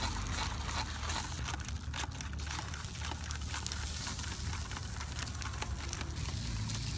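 Small paper fire crackling and hissing, with many short snaps, densest about two seconds in, over a steady low rumble.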